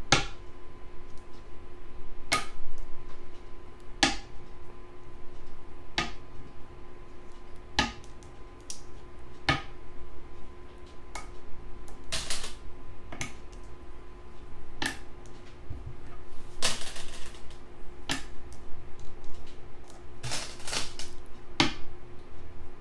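Go stones being set down on a board one at a time, a sharp clack every second or two as a sequence of moves is replayed, over a faint steady hum.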